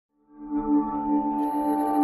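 Intro music for a logo animation: a held, ringing chord of several steady tones that fades in about a third of a second in and sustains.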